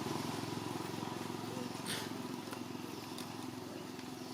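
A small engine running with a rapid, low pulsing that slowly fades, with a single sharp click about two seconds in.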